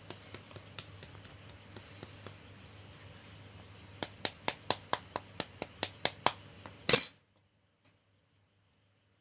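A few light clicks and taps, then a quick run of about a dozen sharp clicks, about four a second, ending in one louder clatter. After that the sound cuts out completely.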